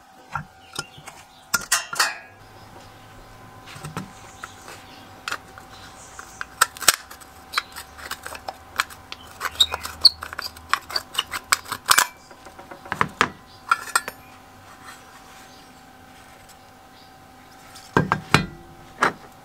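Irregular metal clinks and clicks as a rusty bent steel rod and pin are worked free of a small enamelled steel cover from a vintage Rolux electric lawn mower. A couple of heavier knocks near the end as the cover is set down on a rubber mat.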